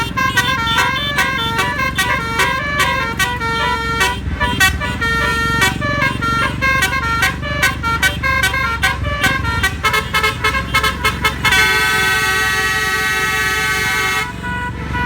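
Telolet musical air horn (Basuri module) on the QQ Trans "Winspector" bus playing a fast melody of short notes, then one long held chord that cuts off sharply near the end. Under it, a steady low rumble of engine and traffic.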